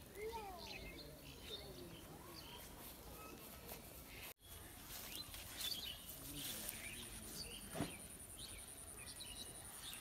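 Rural outdoor ambience with small birds chirping repeatedly over a faint steady background hiss. The sound drops out abruptly for an instant about four seconds in, and a single short knock comes about eight seconds in.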